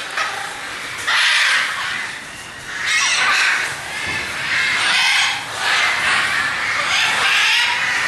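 Macaws squawking: a series of loud, harsh, raspy calls coming about every two seconds.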